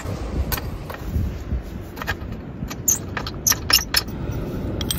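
Steel pipes, wire cables and clamps of a portable bar clinking and scraping as they are handled and fitted together. There are several sharp metal clicks, the loudest a pair about three and a half seconds in, over a steady low rumble.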